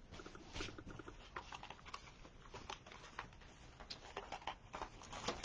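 Hands handling a wreath of wired ribbon and deco mesh: faint, irregular rustling with small taps and clicks.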